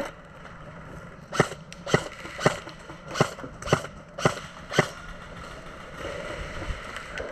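Seven sharp single shots from an airsoft rifle, about two a second, fired one at a time in semi-automatic.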